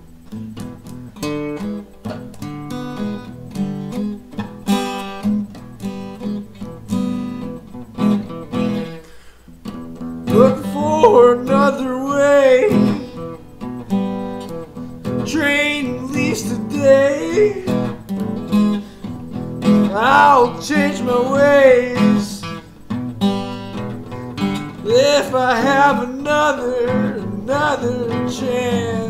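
Acoustic guitar strummed in steady chords. From about ten seconds in, a man's voice sings over it in phrases of long, sliding notes.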